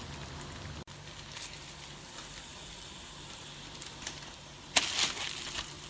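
Fish frying in hot coconut oil in a wok, a steady sizzle, with a sudden louder flare of sizzling near the end.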